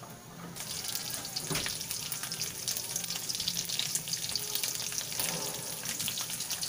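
Tuyo (small dried salted fish) frying in a little oil in a metal wok, a dense sizzle full of crackles that starts about half a second in, with a metal spatula stirring the fish in the wok.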